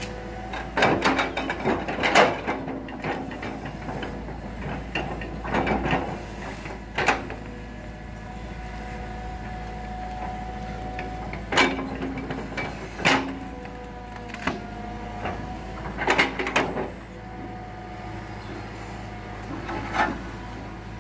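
Hitachi crawler excavator's diesel engine running steadily as it pushes over rubber trees. Sharp cracks and knocks of breaking wood and clanking metal come every few seconds, in bunches about two, six, twelve to thirteen and sixteen seconds in.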